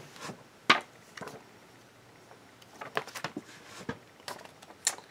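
Playbills being handled and sorted: a scatter of light taps, clicks and paper rustles.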